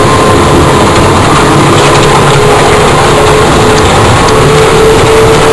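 Coast guard boat's engine running at speed with the boat on plane: a loud, steady drone with a constant rushing noise over it and a slight rise in pitch near the end.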